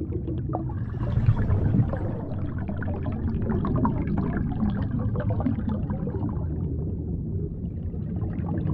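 Underwater ambience: a steady low rumble with scattered small bubbling and crackling, as heard from below the surface.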